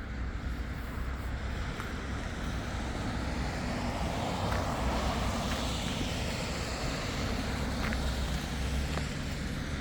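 City street traffic: a steady low rumble of vehicles that swells as one passes about midway.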